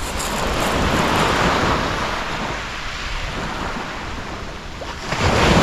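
Surf breaking on a beach, the wash swelling about a second in, easing, then rising louder near the end, with wind rumbling on the microphone.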